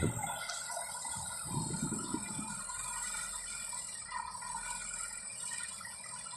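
DT-75 crawler tractor running and moving, its diesel engine going steadily under a rattling, clanking mechanical clatter, with two low rumbles, one right at the start and one about two seconds in.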